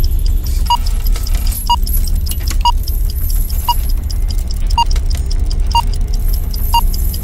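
Electronic countdown-timer beeps, one short high beep each second, seven in all, over a steady deep rumble.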